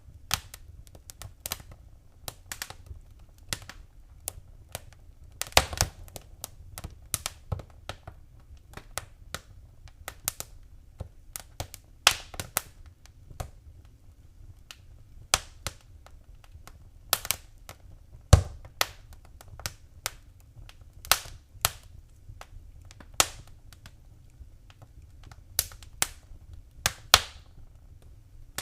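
Fireplace fire crackling: irregular sharp pops and snaps, a few of them louder, over a low steady rumble.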